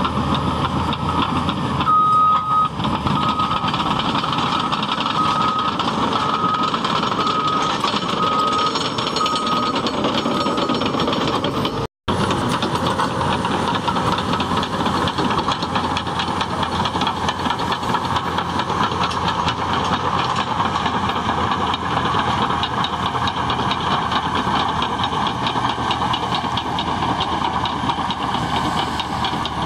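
Cat D6T bulldozer's diesel engine running steadily as the machine works. A series of short high beeps sounds about once a second over the first third.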